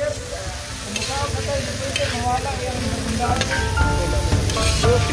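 Chopped pork sisig sizzling in a large wok, stirred with a metal spatula that scrapes against the pan now and then.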